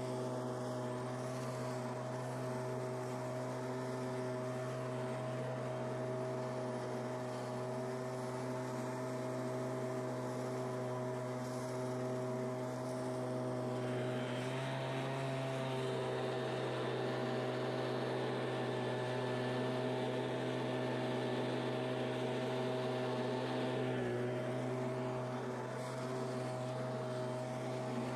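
Stihl handheld gas leaf blower's two-stroke engine running steadily. About halfway through it is throttled up, with a louder rush of air, and it drops back to the lower speed a few seconds before the end.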